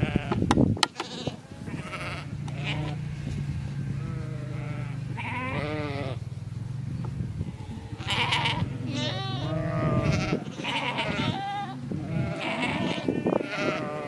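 A flock of ewes and lambs bleating, many wavering calls one after another and overlapping, more of them in the second half.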